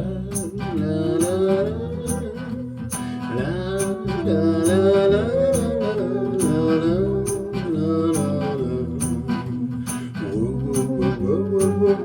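A live band plays an instrumental break of a song: guitar and bass under a wavering melodic lead line, with a light percussion tick about twice a second.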